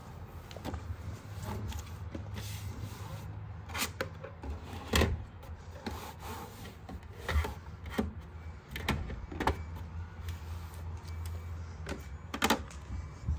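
Household objects being handled: scattered sharp knocks and clicks, the loudest about five seconds in and near the end, over a low steady hum.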